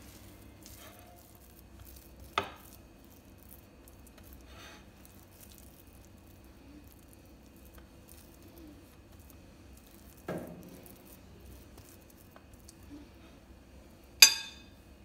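A metal spoon spreading minced-meat topping over flatbread on a ceramic plate: faint soft scraping and squishing, broken by three sharp clinks of the spoon against the dishes, the last and loudest near the end.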